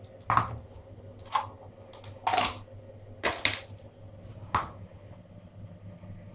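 Plastic deli cups and their clear lids clacking against a hard surface and each other as they are picked up and set down, about six sharp knocks in the first five seconds.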